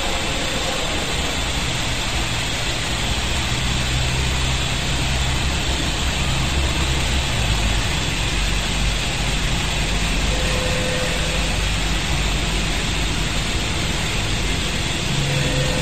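Hardinge Cobra 42 CNC turning center running under power: a steady machine hum with an even hiss over it as the turret moves. The low hum drops in pitch about seven seconds in.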